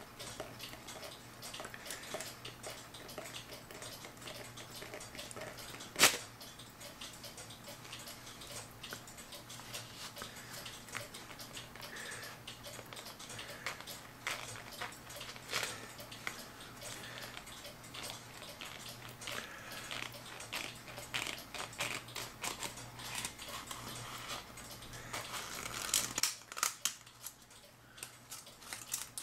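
Steel clock mainspring being worked loose from its brass barrel by gloved hands, with scattered clicks and scraping of the coils and one sharp snap about six seconds in. The spring is sticking in the barrel.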